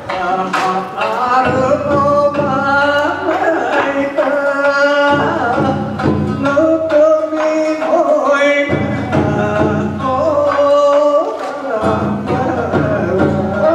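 Japanese bon odori folk song (ondo) performed live: male voices singing a drawn-out, wavering melody over plucked shamisen and taiko drum strokes.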